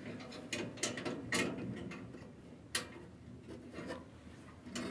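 Light metal clicks and scraping as a furnace flame sensor is worked back into its mounting hole in the burner assembly: a few separate ticks over faint handling noise.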